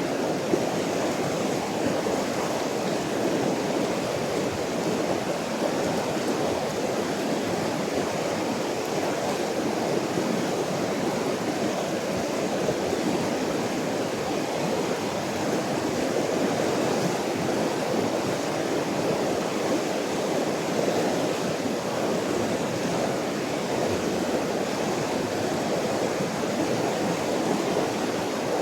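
River water rushing steadily and evenly.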